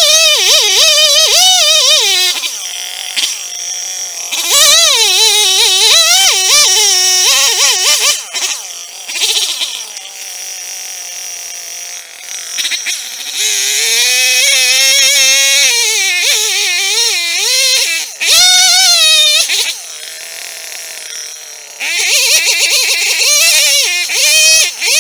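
Two-stroke chainsaw cutting into a wooden stump in bursts of a few seconds, its pitch wavering and dipping as the chain loads up in the wood. Between cuts it drops back to a quieter idle.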